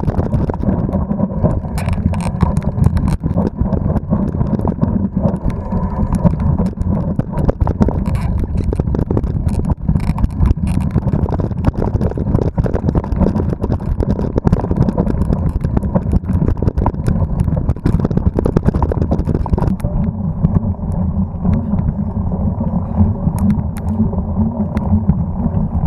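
Mountain-bike ride noise: a dense low rumble of wind and vibration with many sharp rattles and knocks as the bike runs down a rough dirt singletrack. About twenty seconds in the knocks thin out, leaving a steadier low rumble on a slow grassy climb.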